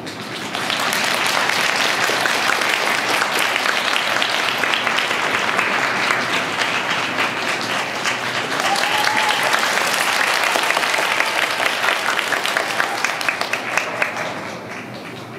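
Audience applauding. The clapping swells up about half a second in and fades away near the end.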